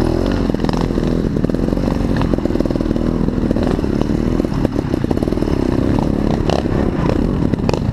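Trial motorcycle engine heard from on board, running with revs that rise and fall as the bike picks its way along a rough dirt track. Short knocks and rattles from the bike run through it.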